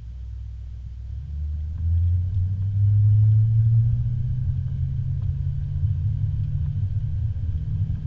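Low engine and road rumble of a vehicle driving slowly, heard from inside the cabin. It swells about two seconds in, then settles to a steady drone.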